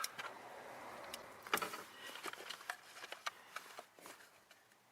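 Scattered small clicks and taps with a soft rustle early on, from hands working wires and crimp connectors.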